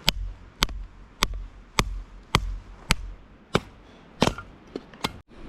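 Firewood being chopped into medium-sized pieces for a campfire: about nine sharp, evenly paced strikes, a little under two a second, slowing slightly near the end.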